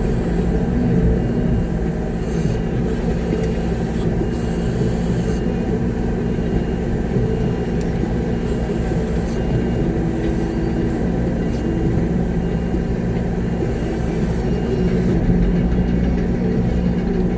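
Concrete mixer truck's diesel engine running steadily, heard from inside the cab as a loud, even drone. A faint beep repeats about once a second over it.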